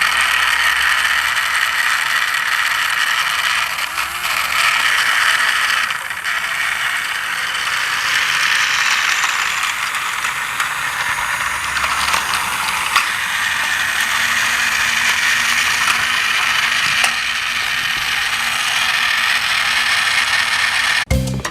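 Battery-powered plastic toy train's motor and gearbox running, a continuous rapid clicking whir of small plastic gears that cuts off suddenly near the end.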